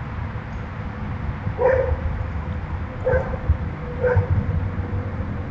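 A dog barking three times, short single barks about a second to a second and a half apart, off camera.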